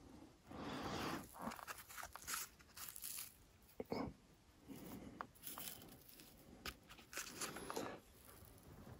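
Birch bark being torn and crumpled by hand: irregular rustling, tearing bursts with a few sharp snaps, the loudest about four seconds in.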